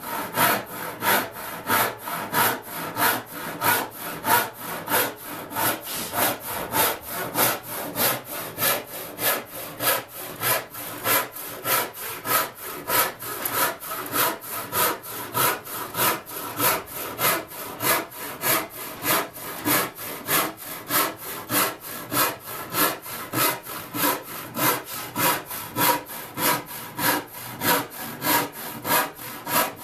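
Hand cross-cut saw cutting through plywood, in steady, even strokes of about two a second.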